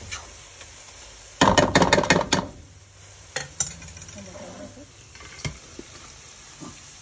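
A spatula scraping and knocking against a cooking pan as thick, crumbly egg halwa is scooped and turned out into a plate: a dense run of scrapes about a second and a half in, then a few single knocks.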